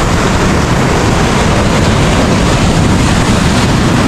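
Steady rush of ocean surf breaking and washing over the sand, with wind rumbling on the microphone.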